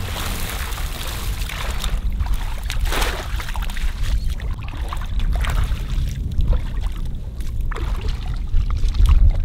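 Water splashing and sloshing as brush-park branches and a fishing net are hauled through shallow water, with irregular splashes, the biggest about three seconds in, over a steady low rumble.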